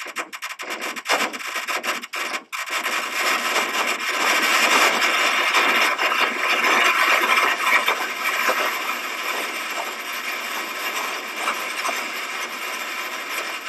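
Scratchy crackling noise: scattered clicks that thicken about two and a half seconds in into a dense, continuous rasping hiss, then cut off at the end.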